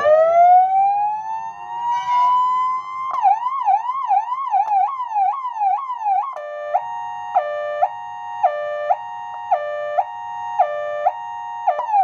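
Repaired Sholphin electronic siren amplifier sounding through its horn speaker as the tone selector is turned. It first gives a wail rising in pitch for about three seconds, then a fast yelp sweeping up and down two or three times a second. About halfway through it changes to a two-tone hi-lo switching between a high and a low pitch, and back to the yelp right at the end.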